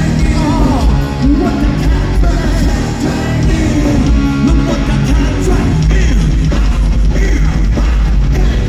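Live rock band playing loud, with drums, guitar and a lead singer's voice at times, recorded from within the audience.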